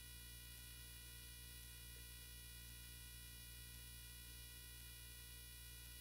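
Near silence: room tone with a faint steady hum.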